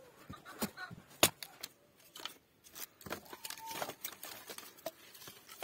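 Axe chopping a log into kindling: three sharp strikes in the first second and a half, the last the loudest. Then the split sticks are gathered by hand, rustling and knocking together.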